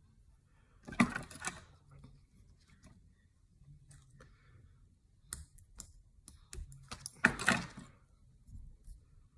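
Light clicks and small rattles of fly-tying tools and thread being handled at a vise, with two louder clusters of clicks about a second in and about seven seconds in.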